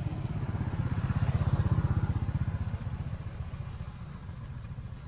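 A motor vehicle engine running with a low, pulsing rumble that grows louder to a peak about a second and a half in and then fades away, as of a vehicle passing by.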